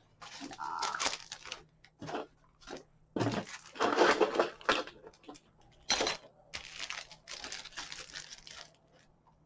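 Paper and plastic packaging being handled, rustling and crinkling in irregular bursts, loudest about four seconds in.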